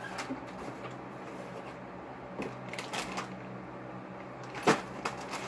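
Scattered crackles and clicks of potato chips being crunched and handled, with one sharper crack about four and a half seconds in.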